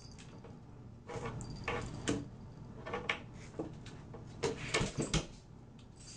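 A cat pawing at a small hook on a wall cabinet door, setting off a string of sharp knocks and rattles that begins about a second in and is loudest near the end.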